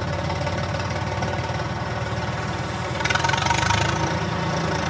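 Bell backhoe loader's diesel engine running as the machine drives past, louder about three seconds in as it comes closest.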